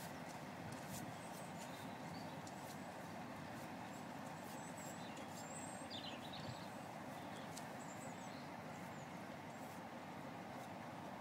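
Steady low rumble of a Class 47 diesel locomotive idling some way off. Over it come faint crunching footsteps on track ballast and a few bird chirps.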